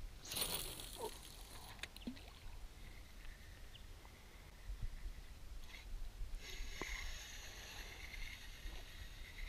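A spinning rod is cast, the line hissing out briefly near the start. From about six and a half seconds in, a spinning reel is cranked with a steady high whir, retrieving the lure.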